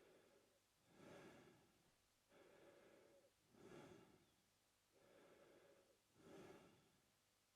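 A man breathing slowly and evenly through his mouth, faint: about three in-and-out breath cycles, each breath a soft rush of air.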